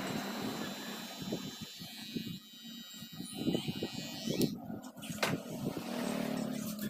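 Electric hair clippers running with a steady high whine while cutting over a comb, stopping about four and a half seconds in, with light scattered taps from the comb and hands.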